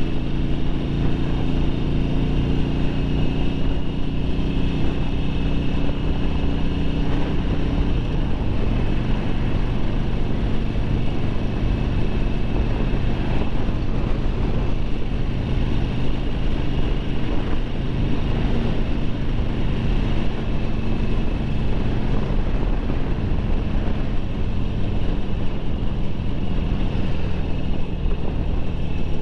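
2009 Harley-Davidson Sportster 1200 Low's air-cooled V-twin engine running at a steady road cruise, heard from the saddle. Its note eases slightly lower over the first several seconds, then holds steady.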